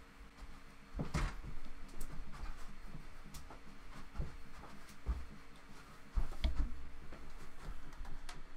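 A person moving about a small room close to the microphone: scattered soft thumps and small knocks, loudest about a second in and again past the six-second mark, over a faint steady hum.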